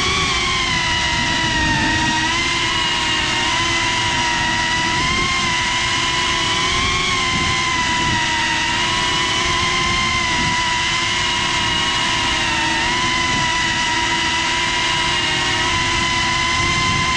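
FPV quadcopter's electric motors and propellers whining steadily as it orbits, the pitch wavering slightly with small throttle changes.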